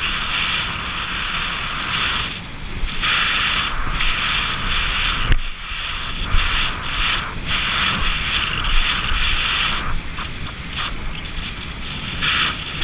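Wind buffeting the microphone and water rushing past the hull of a small motorboat under way at sea, a steady hiss that dips now and then, with a few sharp knocks as the hull meets waves.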